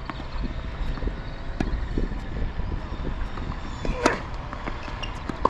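Strong wind buffeting the microphone as a steady low rumble, with two sharp tennis-ball impacts about a second and a half apart, the first, about four seconds in, the louder.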